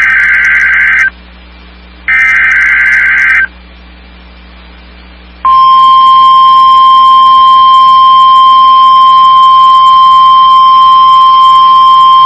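NOAA Weather Radio test signal: two harsh SAME header data bursts, each about a second and a half long with a short gap between them. About five and a half seconds in, the steady 1050 Hz warning alarm tone begins, loud and unwavering. It is a test of the specific area message encoding and tone alert systems.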